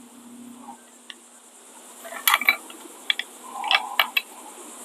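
A few light metallic clicks and rattles, about two seconds in and again near four seconds, from a cable and its pin connector being handled and run through.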